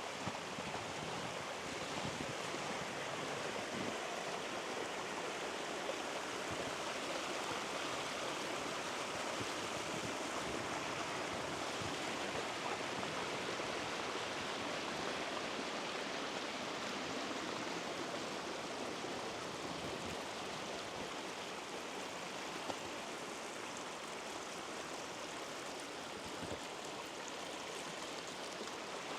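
Steady rushing of running water, like a mountain stream, with no breaks or changes.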